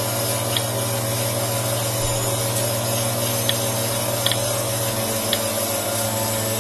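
Two-stage 2 CFM vacuum pump running steadily under a low steady hum, with a few faint ticks.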